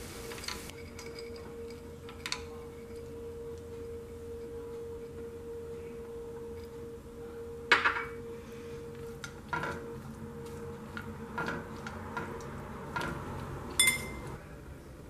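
Wooden spoon knocking and scraping against a frying pan of cooked ground beef in scattered clinks, the loudest a little past halfway.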